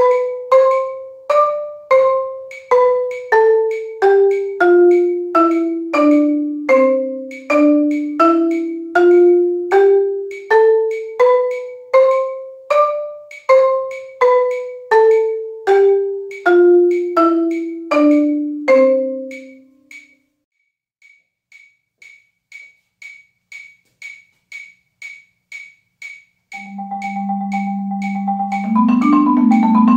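Marimba One wooden-bar marimba played with mallets: single notes struck one at a time, about one every three-quarters of a second, the pitch wandering up and down in the lower-middle range, for about two-thirds of the time. Then a few seconds of only faint steady ticking, and near the end sustained rolled notes that climb into fast, louder runs.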